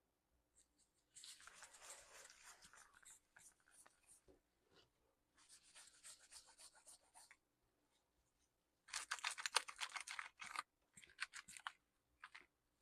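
Cloth rubbing and scrubbing on a laptop part to clean it, in several spells of quick back-and-forth strokes. The loudest spell comes about nine seconds in, followed by a few short wipes.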